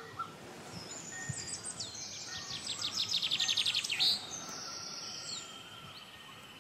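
Birds calling and singing in trees, with a fast run of high chirps between about two and four seconds in, followed by thin, steady high whistles.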